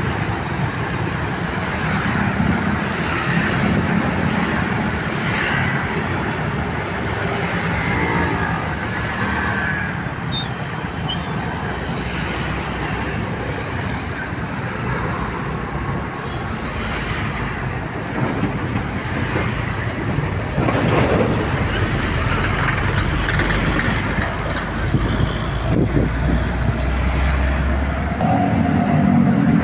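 Steady toll-road traffic, with buses and trucks driving past one after another and their engines and tyres swelling louder as the heavier vehicles go by.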